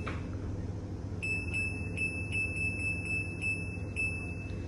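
Top-loading washing machine's electronic signal: a steady high beep from about a second in until near the end, with a light tick about three times a second, over a low hum.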